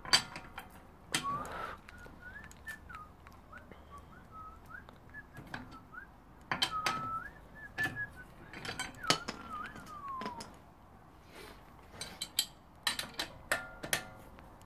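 A person whistling a wavering tune from about a second in until about ten seconds, ending on a falling note, over sharp metallic clicks and clinks of a tool working on the car wheel's bolts.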